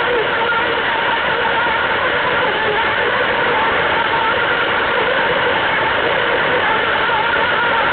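Battery-powered Plarail toy train running on plastic track, heard right on board: a steady whir of the small motor and gears, with the rattle of the plastic wheels.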